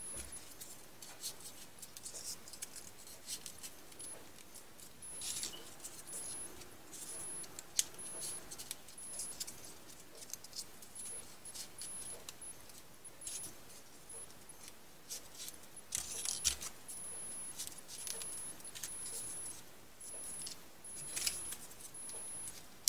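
Folded paper triangle modules rustling and clicking as they are pushed into one another and slid into the rows of a 3D origami model: an irregular patter of small crisp paper sounds, busier in a few short spells.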